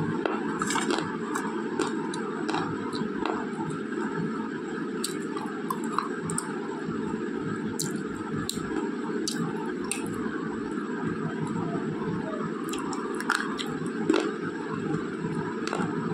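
Close-up chewing of edible slate pencil, with scattered sharp crunching clicks every second or so over a steady background hiss.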